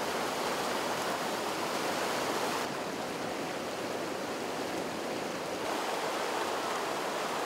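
A swollen, muddy river in flood rushing over rocks: a steady noise of fast-moving water that shifts slightly in tone twice.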